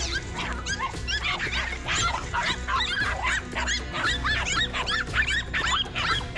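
A pack of dogs barking and yelping at once, many short high calls overlapping without a break, over background music.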